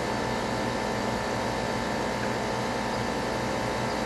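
A 5-ton air-conditioning condensing unit running, giving a steady hum with a few fixed tones.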